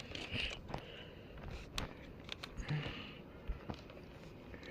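Faint, scattered light clicks and rustles of hands handling electrical wires and small plastic connectors.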